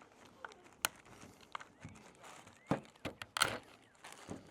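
Scattered clicks and knocks from a truck's battery junction box being worked apart by hand, the loudest about three and a half seconds in.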